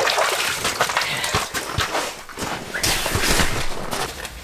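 A large lake trout splashing and sloshing in the water of an ice-fishing hole as it is handled, with irregular knocks and scrapes against the ice and slush.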